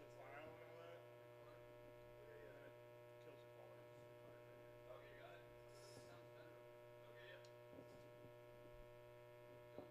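Near silence except for a steady electrical mains hum from the band's idle amplifiers and PA.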